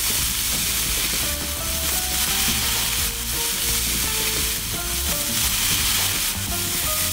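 Glazed meat slices sizzling steadily in a frying pan, with light background music.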